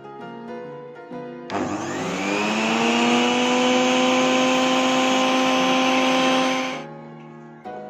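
Philips HR1811 juicer's 350-watt motor switched on at the knob: it whines up in pitch for about a second and a half as it spins up, runs steadily for about four seconds, then is switched off and winds down quickly. Background piano music plays before it starts and after it stops.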